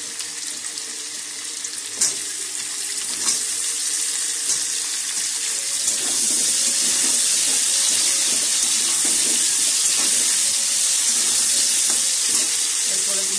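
Potato and vegetable pieces frying in hot oil in a wok: a steady sizzle that gets louder about six seconds in. A metal spatula clinks against the wok now and then as they are stirred.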